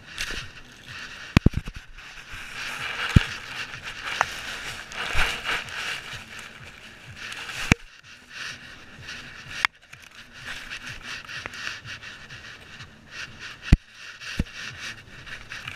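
Rustling and scraping from a GoPro strapped to a dog as it moves its head through the grass, with a handful of sharp knocks and clicks on the camera housing.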